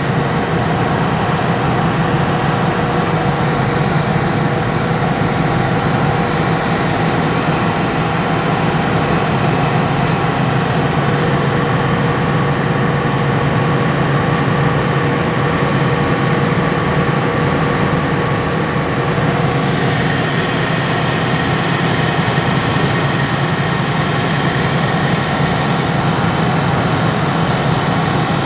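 Steady engine and road noise of a vehicle driving at speed on a highway, with a faint steady whine that shifts higher about two-thirds of the way through.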